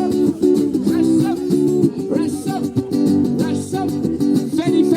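Music: an instrumental break in a Nepali folk song, a plucked-string melody of quick repeated notes.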